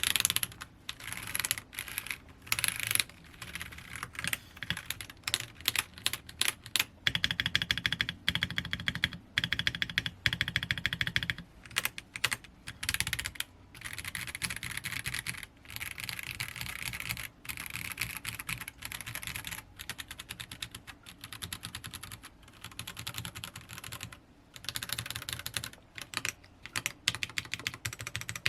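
Typing on a Royal Kludge RK-H81 mechanical keyboard with brown switches, a sound test of the switches. The keystrokes clatter in runs, with short pauses, and some stretches of very fast keystrokes.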